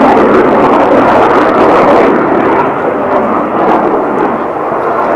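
MiG-29 fighter jet in flight, its twin Klimov RD-33 turbofans heard from the ground as loud, dense, rushing jet noise. The noise eases slightly midway and swells again near the end.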